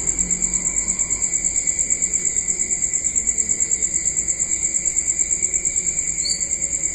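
Insects trilling: a steady, high-pitched chirr that pulses rapidly and evenly, with a second, lower steady tone beneath it.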